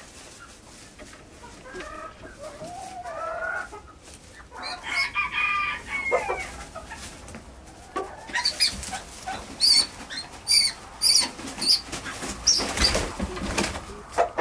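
Rooster calling with drawn-out, sliding calls and clucks, followed by a run of short, sharp, high-pitched chirps about twice a second, and a loud rustling burst near the end.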